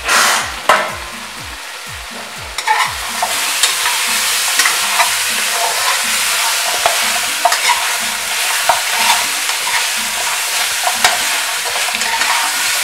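Goat meat sizzling in hot oil and caramelised sugar in an aluminium caldero, with a spoon scraping and knocking against the pot as it is stirred. The lid clanks twice as it comes off at the very start, and the sizzle grows louder about three seconds in.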